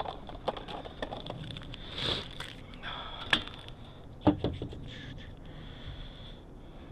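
Hands working a bicycle tire onto its wheel rim: scattered rubber-on-rim scrapes and small clicks, with two sharper knocks a second apart in the middle.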